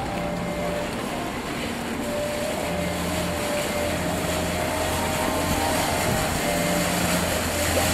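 A motorboat's engine running steadily, a low drone with a few faint steady tones under a wash of water and wind noise.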